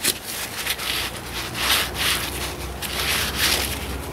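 Rubbing and scraping strokes, several in uneven succession, as old gasket material and grime are cleaned off a small metal cover plate from a Ford 2N tractor's rear end.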